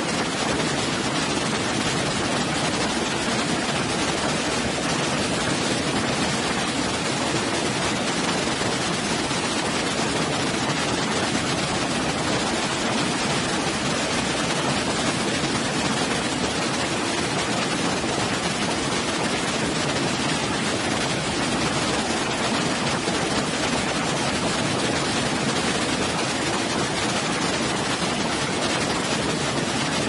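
Waterfall: the steady, even rush of water falling into a pool, unchanging throughout.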